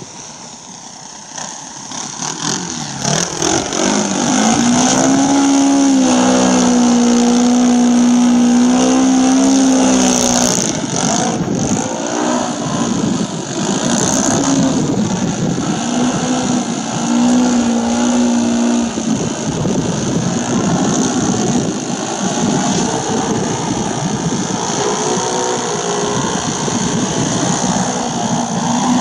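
Hype 3D radio-controlled aerobatic model plane's motor and propeller. The sound grows from faint to loud over the first few seconds as the plane comes in, holds a steady pitch for a few seconds, then rises and falls with the throttle while it flies nose-up close by.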